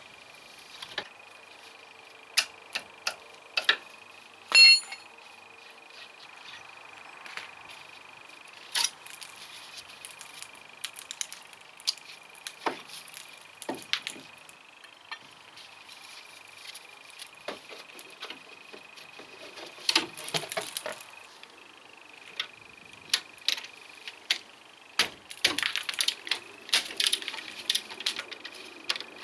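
Hand tools clinking and knocking on metal parts during work on a car's front disc brake: scattered sharp clicks, one loud ringing metallic strike about four and a half seconds in, and a quick run of clicks near the end.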